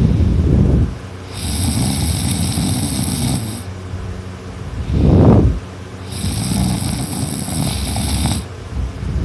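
A sleeping person snoring loudly in a slow breathing rhythm: two long, rough snores of about two seconds each, with a short, louder burst of breath at the start and another, the loudest, about five seconds in.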